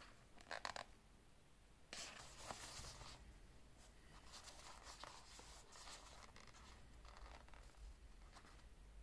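Faint handling noise of a wristwatch and its fabric cushion being turned over by hand: soft scratching and rustling, with a few small clicks about half a second in and a louder rustle about two seconds in.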